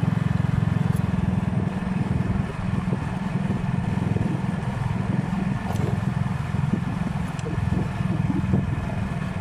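Motorcycle engine running steadily at cruising speed, a constant low rumble.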